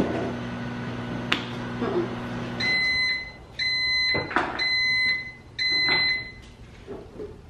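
Kitchen range hood fan humming steadily, cutting off about two and a half seconds in. Four evenly spaced electronic beeps follow, about a second apart, with a few sharp clicks and knocks.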